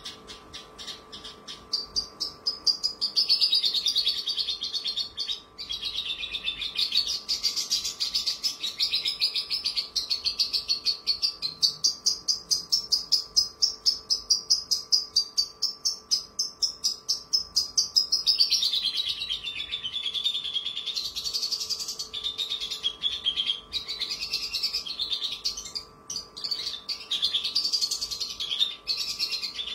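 Caged Javan bush lark (branjangan, Mirafra javanica) singing a long, continuous song of rapid, trilled notes that swoops up and down in pitch, starting about a second in.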